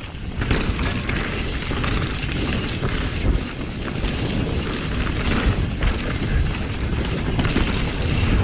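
Wind buffeting the microphone over the rumble and clatter of a mountain bike rolling fast over a dirt trail, with scattered knocks from bumps.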